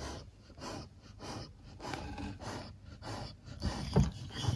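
A dog in labour breathing in quick, regular breaths, about two to three a second. Near the end there is a louder bump and rustle of movement.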